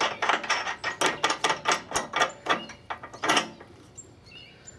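Quick, uneven metal clicks and clinks, several a second, from bolt hardware being fitted by hand at the clevis under a bolt-on grab hook. They thin out to a few faint ticks after about three and a half seconds.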